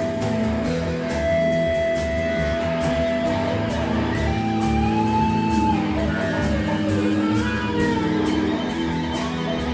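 A theremin playing with a rock band: one note held for about three seconds, then sliding, wavering notes, over guitar and a steady drum beat.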